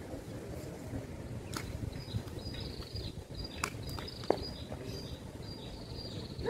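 Outdoor ambience: a low rumble with a few sharp clicks, and a high, thin insect buzz that comes in about two seconds in and carries on in broken stretches.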